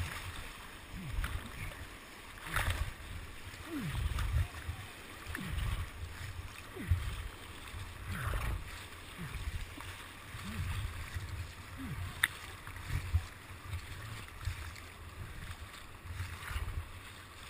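Whitewater rapids heard from a kayak-mounted camera at water level: rushing water with irregular low thumps, gurgles and splashes as waves wash over the camera. There are louder splashes around 2–3 seconds in and again around 8 seconds in, and a single sharp click near 12 seconds.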